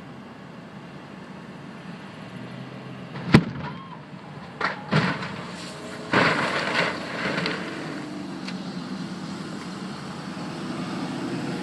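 A car stunt with a loud sharp bang about three seconds in, two smaller bangs a second or so later, then a longer crashing burst of several hits a little after six seconds, over a low steady vehicle hum.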